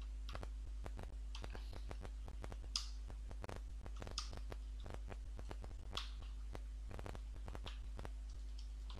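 Typing on a computer keyboard: a run of irregular keystrokes, a few struck harder than the rest, over a steady low electrical hum.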